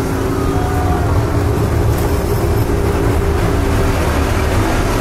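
Casey Jr. Circus Train, a small amusement-park ride train, rolling along its track: a steady rumble of wheels on rails and the running gear.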